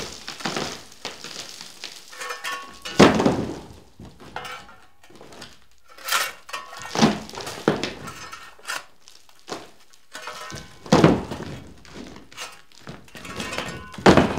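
A hammer striking loose masonry and plaster overhead, as a series of heavy knocks a few seconds apart. After each blow, broken bits fall and clatter down.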